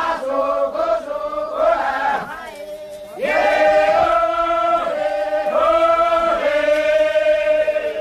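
A crowd of villagers chanting a song together in unison. Short chanted phrases come first, then about three seconds in the voices swell into a long, held note.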